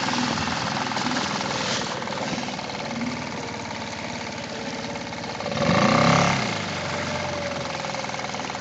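Suzuki 2.5 hp outboard motor running steadily, pushing a small boat, with a brief louder sound about six seconds in.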